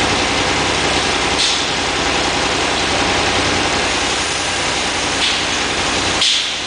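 High-pressure hull-blasting gear running steadily: a heavy engine drone under the loud, even hiss of the spray jet on the steel hull, with short louder hisses now and then.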